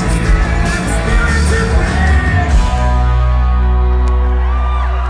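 Live rock band (vocals, electric guitars, bass and drums) playing loudly at the close of a song, then about three seconds in landing on a final chord that is held and rings out. The first whoops from the crowd come in near the end.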